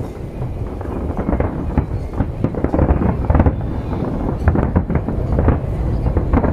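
Fireworks display: a continuous low rumble of shells bursting, with many quick overlapping pops and crackles.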